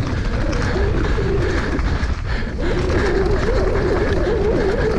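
Mountain bike rolling fast down a dirt trail: the knobby tyres give a hum that wavers in pitch with speed, over a low rumble of trail noise. The hum drops out briefly about two seconds in.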